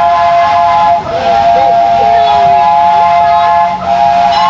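A steam locomotive's chime whistle blows in long blasts, several notes sounding together, with short breaks about a second in and near the end.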